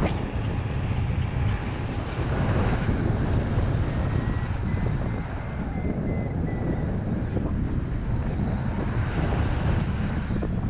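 Airflow buffeting the microphone during a paraglider flight: a steady rush of wind noise.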